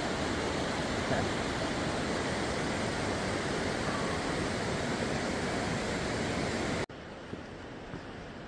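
Steady rushing of a mountain creek's water over rocks, cut off abruptly near the end, leaving a quieter background with a few light clicks.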